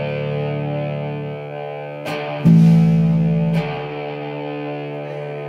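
Distorted electric guitar playing slow, sustained chords. A louder chord is struck about halfway through and rings for about a second before the next one.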